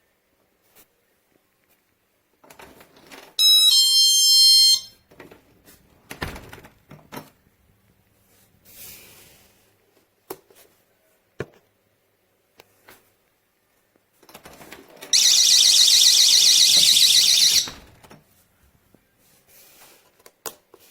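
GE personal security window and door alarm: a short two-tone electronic chime about three seconds in, then, about fifteen seconds in, its loud high-pitched warbling alarm sounds for about two and a half seconds and cuts off. Scattered knocks and clicks of handling in between.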